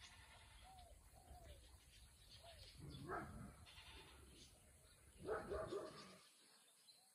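Animal calls: two louder calls about three and five and a half seconds in, with a few short, fainter calls before them.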